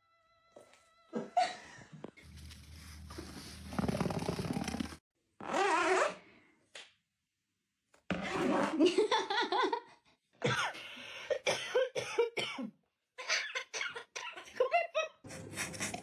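Coughing and other short vocal sounds, in several separate bursts with pauses between.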